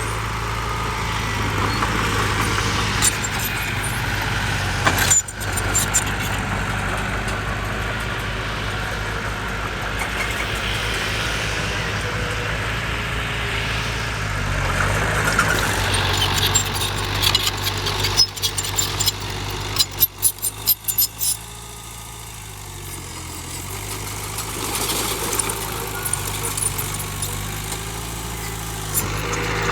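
Heavy diesel earthmoving machinery running steadily, with a burst of sharp clanks and rattles about two-thirds of the way through.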